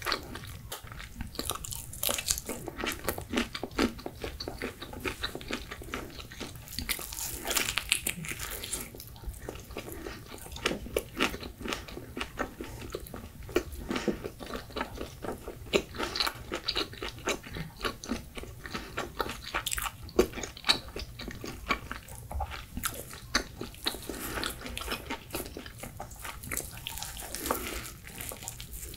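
Close-miked eating sounds of a person biting into and chewing pizza crust and toppings, a dense run of small crunches and wet mouth clicks.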